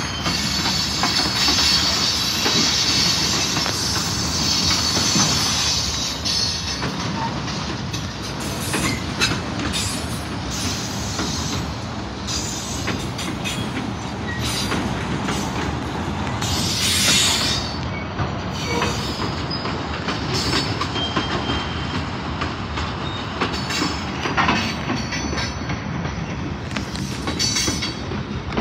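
Freight cars of a Union Pacific train rolling past: a steady rumble and hiss of steel wheels on rail, with scattered clicks and knocks from the wheels and couplers.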